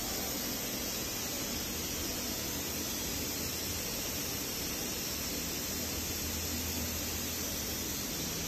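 A steady hiss with no distinct events, joined by a faint low hum in the second half.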